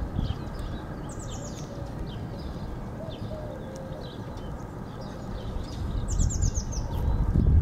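Songbirds singing and calling in short chirps, with one bird twice giving a quick descending trill of notes. Underneath is a low rumble that eases in the middle and swells again near the end.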